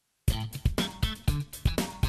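Background music starts suddenly just after a moment of silence: a guitar-led tune with a steady beat.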